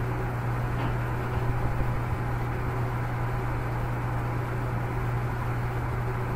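Steady low hum with an even hiss: background noise of the recording, with no speech.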